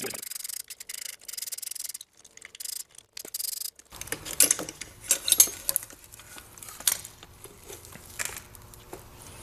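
Hand ratchet clicking in quick rasping runs while T30 Torx bolts are undone. Scattered light metal clinks and knocks follow from about four seconds in.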